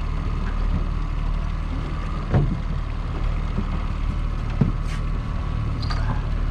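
Fishing boat's motor running steadily, a low hum with a thin steady whine above it. A couple of sharp knocks come through, the loudest about two seconds in and another about four and a half seconds in.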